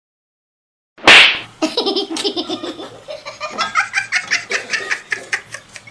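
A sudden loud burst of noise about a second in, then a person laughing in quick repeated bursts.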